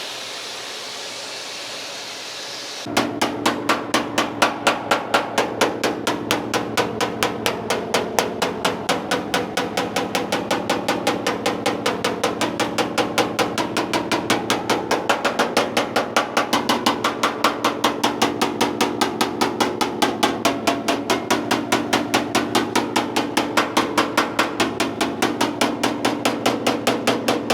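Background music with a fast, very regular percussive beat over steady held tones, starting abruptly about three seconds in after a few seconds of steady hiss.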